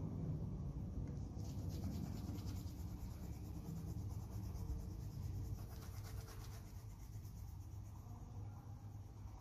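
Coloured pencil shading back and forth on paper in rapid, scratchy strokes, stopping about six and a half seconds in.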